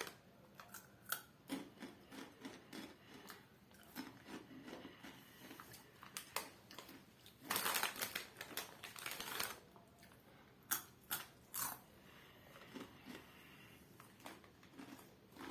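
Crunchy Takis rolled tortilla chips being bitten and chewed, with scattered irregular crunches and clicks and a louder stretch of crackling about 7 to 9 seconds in.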